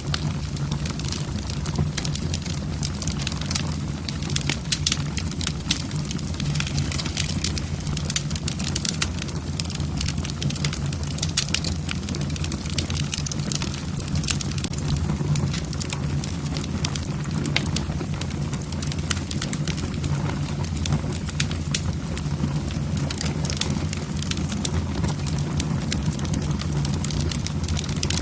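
Wood fire burning in a fireplace: logs crackling with many sharp pops and snaps over a steady low rumble of the flames.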